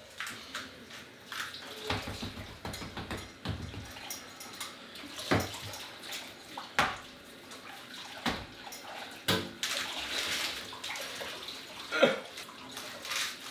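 Water running steadily, with a few sharp knocks and clatters scattered through it.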